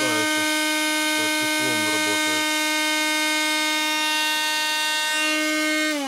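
Heyner Cyclonic Power PRO 138 W 12 V handheld car vacuum cleaner running steadily, a motor whine with a rush of air. At the very end its motor starts to wind down, the pitch falling.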